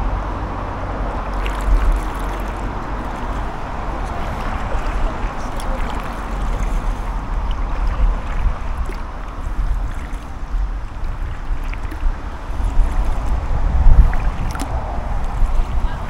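Kayak paddling: paddle blades dipping and splashing through river water, with a few faint knocks, over a low wind rumble on the microphone.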